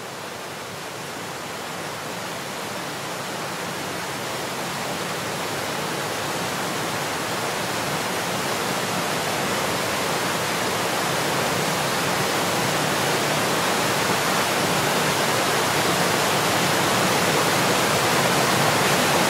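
Stirling Falls, a 155-metre waterfall, pouring down close by as a steady rush of water noise. It grows gradually louder as the boat moves into its spray.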